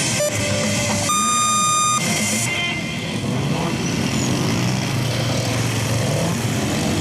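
Electronic beeps: a lower tone, then a longer, higher tone about a second in, and a short higher one after it. Beneath and after them, a 2006 Honda CBR600RR's inline-four engine runs with its pitch rising and falling as the bike is ridden through tight gymkhana turns.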